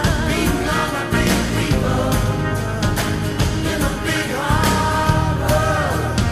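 Background music: a song with a sung vocal over drums and bass.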